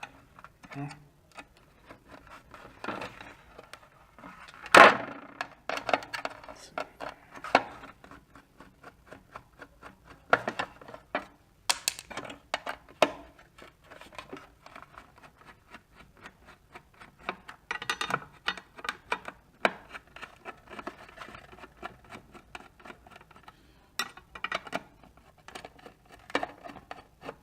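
A small Phillips screwdriver working tiny screws out of a USB port mount in a plastic housing: a steady string of small clicks, scrapes and ticks of metal and plastic, with one louder knock about five seconds in.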